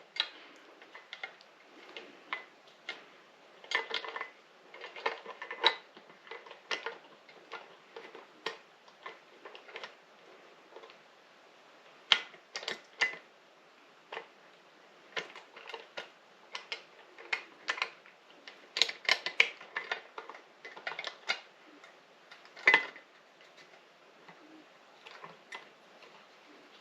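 Small metal bolts being started by hand into a TV stand's bracket: irregular light metallic clicks and taps, with a sharper clack about twelve seconds in and another near the end.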